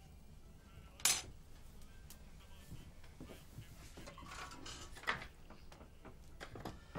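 Kitchen handling sounds: a sharp clink about a second in, then scattered light knocks and scrapes of dishes and a mixing bowl being handled at the counter.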